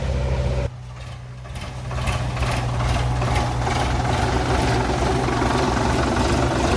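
An engine idling with a steady low hum; it drops away suddenly under a second in and comes back up over the next second.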